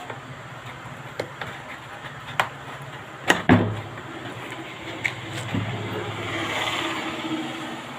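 Sharp knocks and clicks from hands and tools working on a loudspeaker's magnet assembly, the loudest pair about three and a half seconds in, over a steady low hum.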